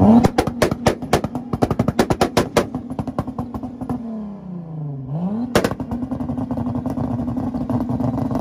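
Car engine held on a two-step launch-control rev limiter, banging and popping rapidly from the exhaust for about three seconds. The revs drop and climb back about five seconds in, with one loud bang, then it holds on the limiter again with lighter crackling.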